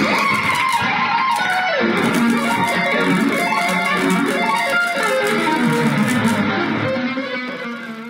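Background music led by guitar, fading out near the end.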